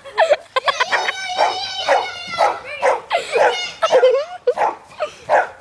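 A dog barking and yipping in quick repeated calls, some of them drawn out and high-pitched: excited play barking while it chases running children.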